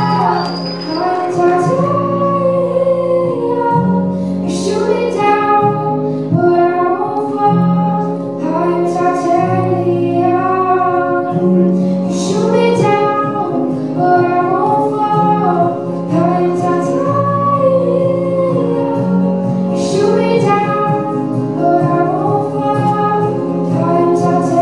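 Teenage girl singing a solo into a handheld microphone, with long held notes, over a musical accompaniment whose low bass notes change every second or two.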